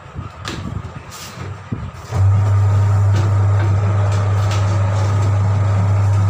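Tyre changer's turntable motor running with a loud, steady low hum that starts about two seconds in, as the tyre is worked onto the rim. Before it come clunks and knocks of the tyre and wheel being handled on the machine.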